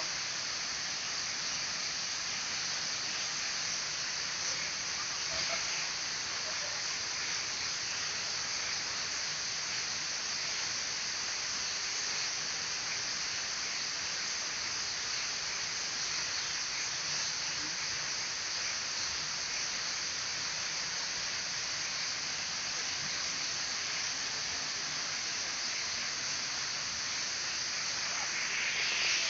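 Misol-Ha waterfall, a steady rush of falling water with an even hiss.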